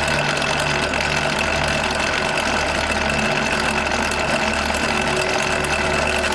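A power tool's electric motor runs steadily at constant speed with a steady whine, starting and stopping abruptly, over quieter background music.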